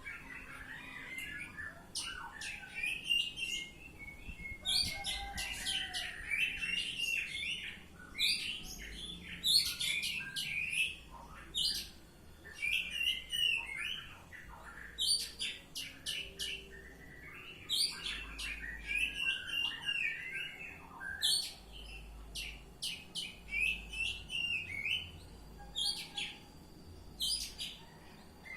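Oriental magpie-robin (kacer) singing freely, a long varied song of whistled phrases and sharp chirps delivered in bursts with short pauses between them.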